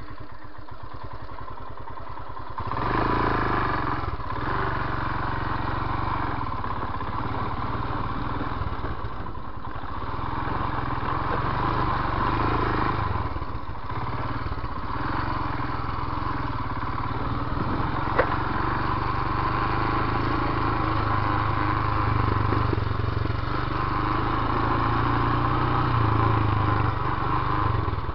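Royal Enfield Himalyan's 411 cc single-cylinder engine running at low revs, then getting louder about three seconds in as the throttle opens. It keeps running under varying throttle while riding over rough dirt, with a few brief dips where the throttle eases off.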